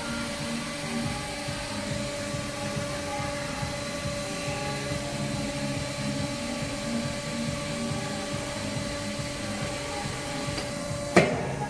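Cookware embossing machine running, its dimpled roller pressing a hammered pattern into a stainless steel pot body: a steady motor hum with a faint, evenly repeating pulse. A single sharp knock near the end.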